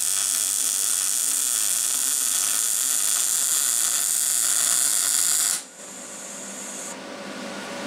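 Arc welding a joint between two steel pipes: the steady crackling hiss of the arc, which stops abruptly about five and a half seconds in.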